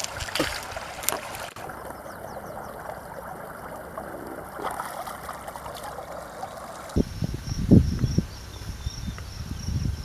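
Water trickling and splashing in a shallow rocky stream as someone stands washing in it. About seven seconds in it cuts to low rumbling, like wind on the microphone, under a steady high insect drone.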